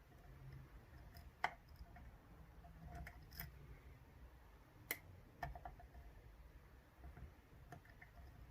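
Faint, scattered clicks and light taps of a pick working the pins of a 10-pin Ezcurra dimple euro cylinder under tension, the sharpest about a second and a half in and just before five seconds in, with a quick few around five and a half seconds.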